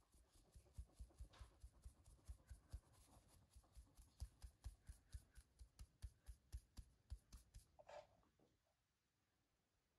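Fine-mesh metal sieve of flour being shaken and tapped by hand in quick, even strokes, about five a second, with the soft rustle of flour through the mesh. It ends with one louder knock.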